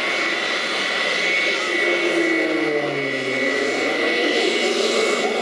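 Jet engines of military aircraft taxiing on an airfield, a NATO E-3A AWACS and a twin-engine MiG-29 fighter: a steady high whine over continuous rushing noise. Around the middle, a lower tone slides down in pitch.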